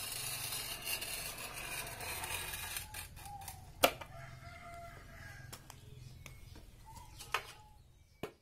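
Glass cutter's wheel scraping a scoring line across a glazed ceramic tile, a steady high scratch for about three seconds. Then come sharp clicks, the loudest just before four seconds, as the tile is worked along the score. A rooster crows several times in the background.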